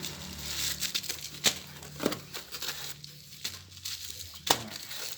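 Packaging being handled and unwrapped: crinkling and rustling with scattered crackles and two sharp snaps, about a second and a half in and near the end.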